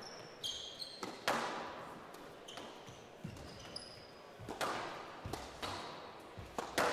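Squash rally: the ball smacking off racquets and walls every second or two, with short high squeaks of court shoes on the floor between the hits.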